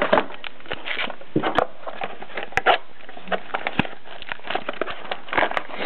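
Small cardboard trading-card boxes being opened and handled: scattered short taps, scrapes and rustles over a steady hiss.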